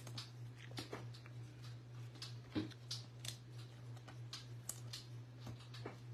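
Trading cards being handled and slid into clear plastic sleeves: scattered soft clicks and rustles at irregular intervals, over a steady low hum.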